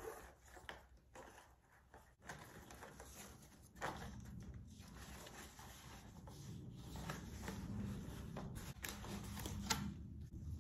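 Hands untying a ribbon and handling a cardboard gift box: faint rustling and sliding, with scattered light clicks and knocks of cardboard.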